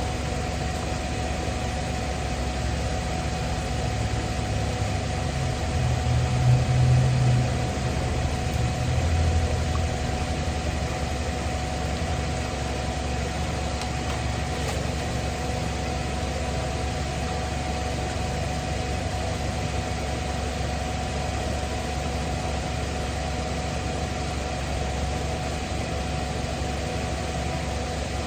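Astro AI portable air compressor running with a steady hum, hooked to a car tyre's valve but with its nozzle attached the wrong way round, so it is not filling the tyre. A louder low rumble swells briefly from about five to ten seconds in.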